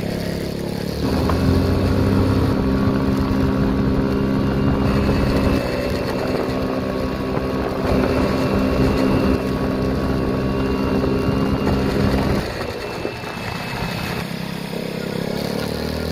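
Honda Ruckus scooter engine running while the scooter is ridden, its first ride after a rebuild. The engine note picks up about a second in and eases off a few seconds before the end.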